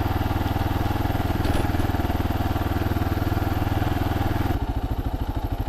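Kawasaki KLR 650's single-cylinder engine running steadily under way; about four and a half seconds in the throttle closes and it drops to a slower, lumpier beat.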